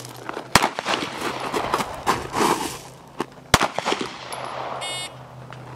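Two loud 9mm pistol shots from a Glock 19, about three seconds apart, with fainter knocks and shuffling between them.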